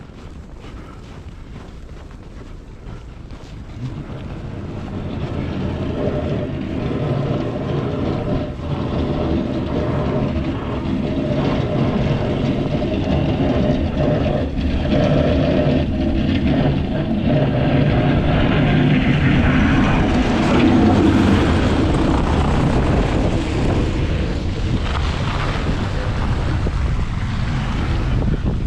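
Heavy truck engine approaching and passing, growing steadily louder over about fifteen seconds and easing a little near the end, with wind buffeting the microphone.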